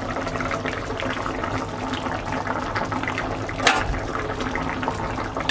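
Curry gravy with fish dumplings boiling in a wok: a steady bubbling full of small pops and gurgles. One sharper click comes about two-thirds of the way through.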